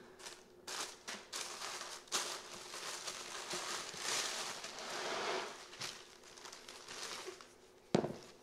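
Tissue paper rustling and crinkling as hands dig through a shoebox, with many sharp crackles, loudest midway. A single dull thump comes near the end.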